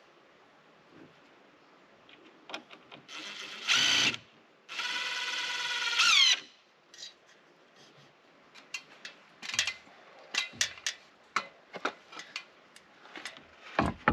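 A power drill runs in two short bursts, the second lasting about a second and a half with a steady whine that rises in pitch as it stops. It is followed by a run of light, irregular knocks and clicks.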